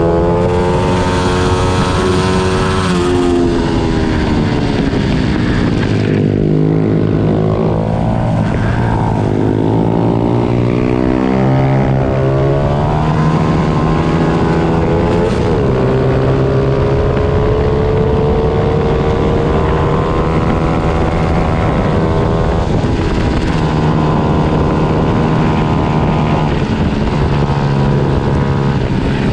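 Several pit bike engines running at once, their pitches rising and falling and crossing as the riders rev, shift and brake around the track.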